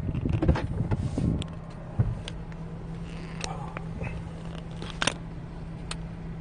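Phone handling noise in a car cabin: rustling and knocks for about the first second and a half, then a steady low hum with a few sharp clicks.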